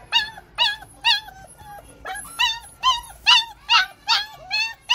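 German shepherd puppy whining in a run of short, high-pitched cries, about two a second, each rising and falling in pitch, with a brief pause in the first half: distress cries.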